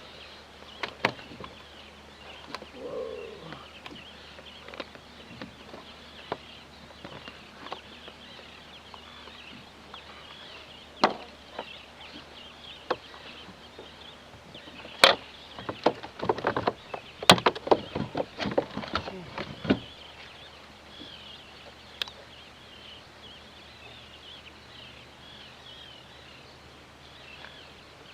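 Scattered sharp knocks and clicks of fishing gear and hard objects being handled aboard a small boat while a fish is fought and brought in. A quick flurry of them comes about two-thirds of the way through.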